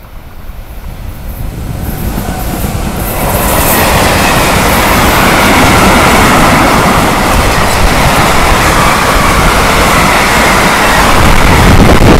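Electric freight train of tank wagons passing close by: the noise rises as the locomotive draws near over the first few seconds, then holds as a loud, steady rush of wheels on the rails while the tank wagons roll past.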